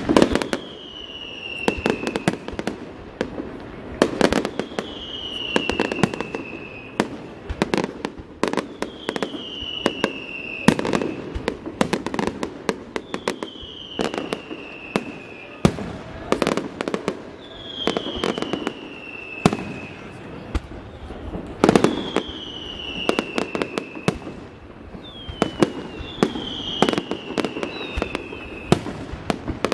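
Fireworks display: repeated sharp bangs and crackling bursts, with a high whistle falling in pitch that comes back about every two seconds.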